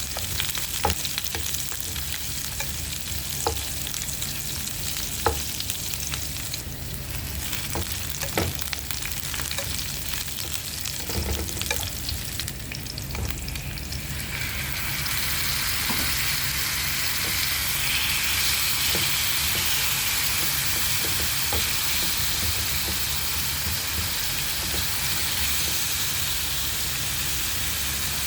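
Food frying in a pan while pancit bihon is cooked: a steady sizzle with scattered clicks of a utensil stirring against the pan. About halfway through, the sizzle gets louder and stays louder.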